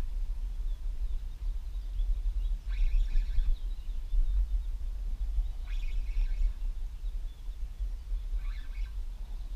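Wind rumbling on the microphone, with a bird giving a short high call about every three seconds.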